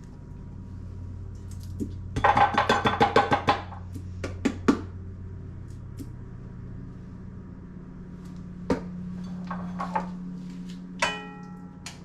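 Kitchen prep sounds from bowls and utensils: a quick rattling run of clicks, a few separate knocks, and near the end a single ringing clink of metal or glass, over a steady low hum.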